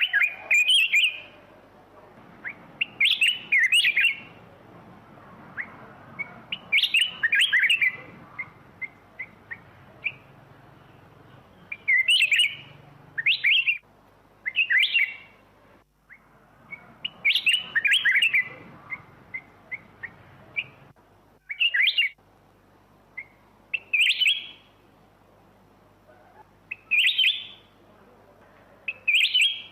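Black-crested bulbul singing: a short, bright warbled phrase every few seconds, with single chirps in between.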